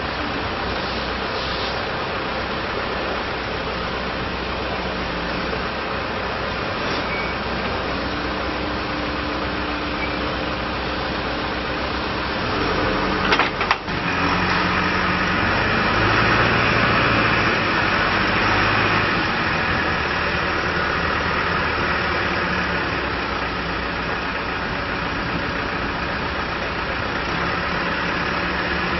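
John Deere 310SJ backhoe loader's four-cylinder diesel engine running steadily. About halfway through there is a short sharp knock, and the engine then runs louder for several seconds before settling back.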